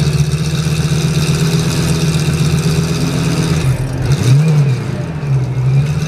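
Lamborghini Gallardo GT3 race car's V10 idling steadily, with one short throttle blip about four seconds in that rises and falls back to idle.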